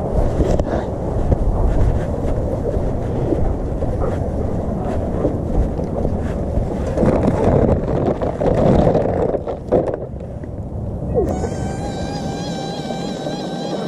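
Wind and handling rumble on a body-worn camera's microphone while walking, with scattered clicks and scuffs. About eleven seconds in the rumble cuts off abruptly and a steady pitched hum with a slight waver takes over.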